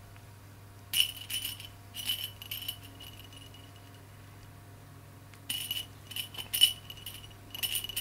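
Soft fabric baby rattle toy jingling in three bursts as it is batted about: about a second in, again around five and a half seconds, and near the end.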